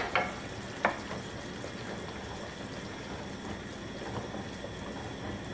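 Wooden spoon stirring heavy cream into a simmering tomato, onion and pepper sauce in a stainless steel skillet: a steady soft bubbling and sizzling, with two light knocks of the spoon against the pan in the first second.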